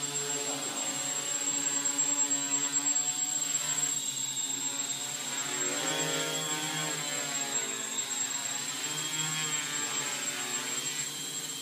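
Quadcopter's electric motors and propellers hovering, a steady multi-toned buzz whose pitch drifts up and down slightly as the motors correct to hold position.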